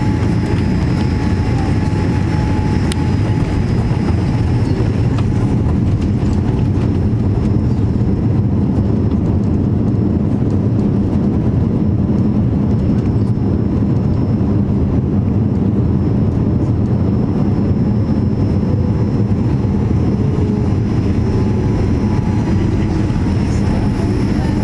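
Steady low rumble inside the cabin of a Boeing 787-8 rolling on the ground after landing: engine and airframe noise, even throughout.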